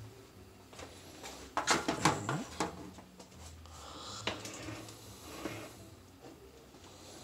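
Quiet kitchen room sound with a brief human vocal sound about two seconds in, followed by a few light clicks of things being handled.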